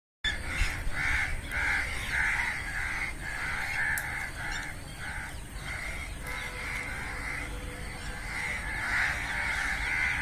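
Crows cawing in a quick, continuous series of calls, a few each second, over a steady low rumble.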